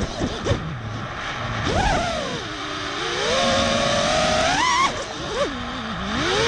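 The motors and propellers of an ImpulseRC Slammed Alien 5, a 5-inch FPV freestyle quadcopter, whining in flight. The pitch sweeps up sharply as the throttle is punched, about two seconds in and again near five seconds, drops back low in between, and rises again near the end.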